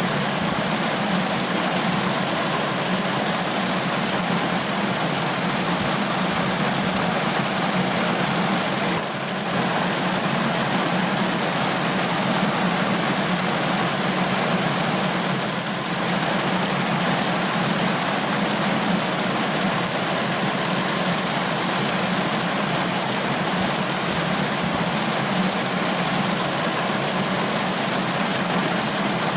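Steady heavy rain falling on a car roof, an even dense patter with two brief dips in loudness about nine and sixteen seconds in.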